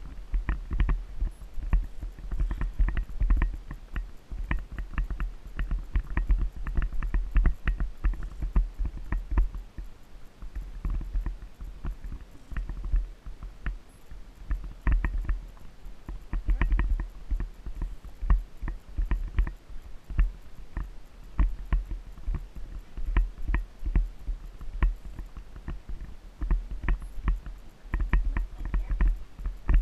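Icelandic horse's hooves striking a dirt trail in a quick, uneven run of sharp beats, heard from the saddle over a constant low rumble.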